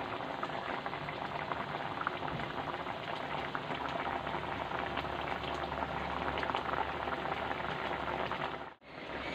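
Spiced curry water with potatoes at a rolling boil in a kadai: a steady, dense crackle of popping bubbles, cutting out briefly near the end.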